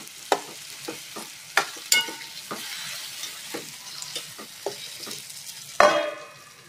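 Chopped tomatoes sizzling in hot oil in a pan while a metal spoon stirs them, knocking and scraping against the pan every half second or so. Near the end a steel lid clanks down onto the pan with a brief ring, leaving the tomatoes to cook down covered.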